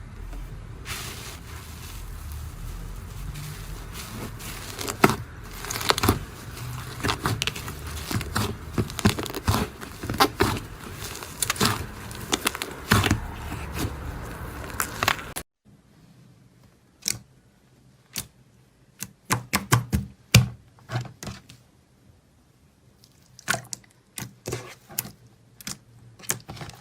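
Slime being squeezed and poked by hand, giving a run of sticky crackling and popping clicks. Slightly past halfway the sound cuts to a quieter clip with scattered single pops and clicks.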